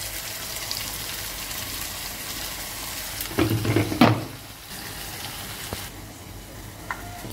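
Tempering of onions and curry leaves sizzling in hot oil in a metal kadai as ground garlic-chilli chutney paste is added. A steel ladle scrapes and clatters against the pan a few times about three to four seconds in, after which the sizzling is quieter.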